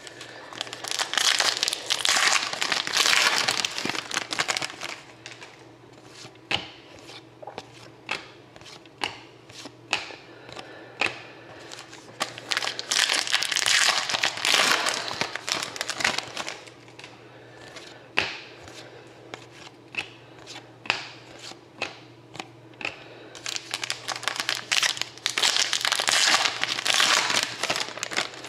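Foil wrappers of hockey card packs crinkling and tearing as packs are opened, in three long bouts, with short clicks and taps of cards being handled in between.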